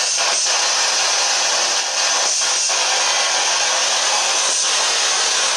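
Spirit box sweeping the radio band: a loud, steady rush of radio static with a few faint, short blips.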